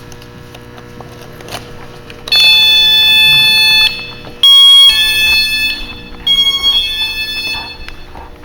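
Battery motion-sensor alarm sounding its electronic tones just after being switched back on. There is a long loud beep about two seconds in, then a run of shorter beeps that change pitch.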